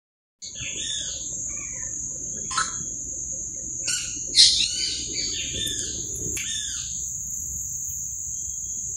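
Birds calling in short swooping chirps, several times over the first seven seconds, the loudest about four and a half seconds in, over a steady high-pitched insect drone.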